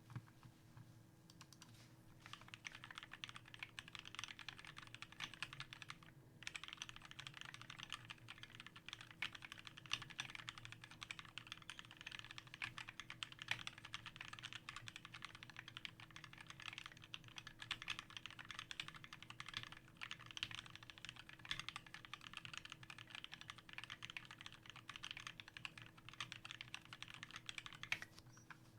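Steady, fast typing on a custom 60% mechanical keyboard with lubed and filmed Durock Linear L2 linear switches, Tai-Hao PBT keycaps and an aluminium Tofu case: a continuous stream of key clacks. It starts about a second in, pauses briefly about six seconds in, and stops near the end.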